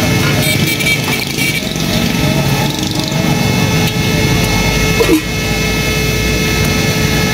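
Steady roar of an air blower fanning the charcoal of a kebab grill, with a constant motor whine. Metal skewers clatter briefly about a second in.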